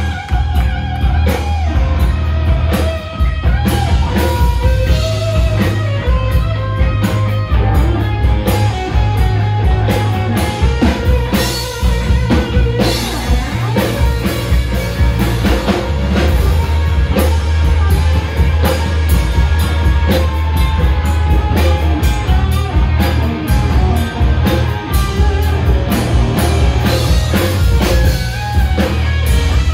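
Live rock band playing loudly without vocals: electric guitar, bass guitar and drum kit, running steadily throughout.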